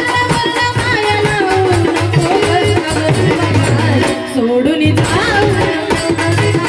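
A woman singing a Marathi devotional song to the goddess Ambabai, with a melody of held and gliding notes over a steady, fast hand-drum beat.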